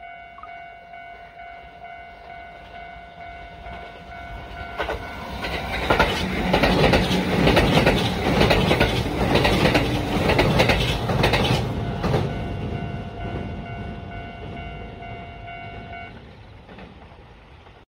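A train passing close by, its wheels clattering over the rail joints. The clatter builds from about five seconds in, is loudest for several seconds and then fades away. A steady ringing warning tone, like a railway level-crossing bell, sounds under it before the train arrives and again as it recedes.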